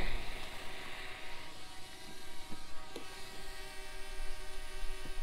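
DJI Mavic Mini drone's propellers hovering overhead with a steady buzzing whine, along with a few faint clicks.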